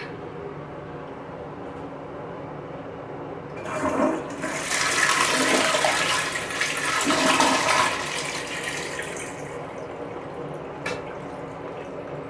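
Niagara Stealth toilet flushing: a rush of water starts about four seconds in, runs for about four seconds and tails off. A brief click comes near the end.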